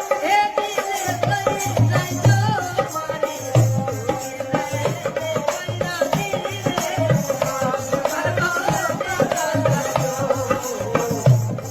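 Rajasthani folk song by a Bhopa singer: a wavering melody over a steady drone, with a regular low drum beat and a jingling rattle.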